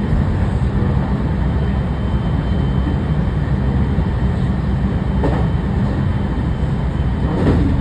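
Running noise inside a JR West 207 series 2000 subseries motor car fitted with a Toshiba IGBT VVVF inverter: a steady low rumble with a faint high steady whine. Near the end come two brief clatters about two seconds apart, the second louder.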